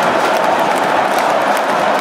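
Packed football stadium crowd of tens of thousands cheering and shouting together in a loud, unbroken wall of noise as it celebrates a goal.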